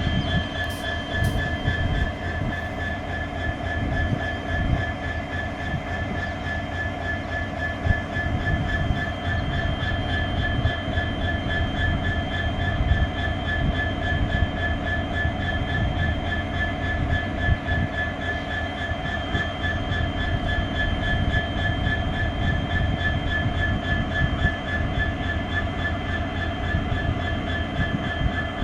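WDG4 (EMD GT46MAC) diesel-electric locomotive idling: its 16-cylinder two-stroke EMD 710 diesel running with a steady low rumble and a steady high-pitched hum over it.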